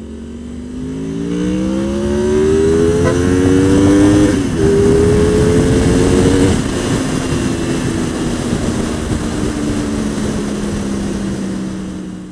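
Motorcycle engine accelerating hard, its pitch rising, dipping briefly at a gear change about four and a half seconds in, then climbing again. It then eases back to a steadier, slowly falling note, and the sound cuts off suddenly at the end.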